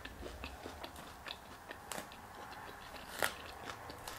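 Quiet chewing and crunching of a mouthful of salad, with scattered light clicks; the sharpest comes about three seconds in.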